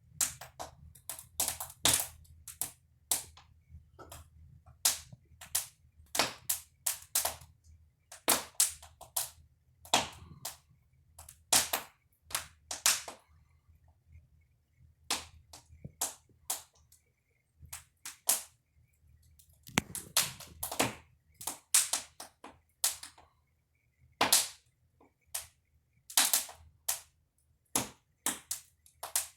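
Wood fire crackling, with sharp, irregularly spaced pops over a faint, steady low rumble.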